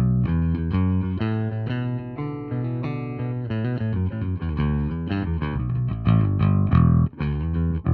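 Astra Shoreline Gold electric bass with split-coil Righteous Sound P-bass pickups, played with a pick on the bridge pickup through an Ampeg SVT amp plugin: a steady run of quick picked notes with sharp attacks.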